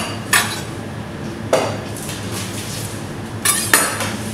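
Kitchen clatter of pans and utensils: a few short, sharp knocks and clinks, one just after the start, one about a second and a half in, and two close together near the end, the last the loudest, over a steady background hum.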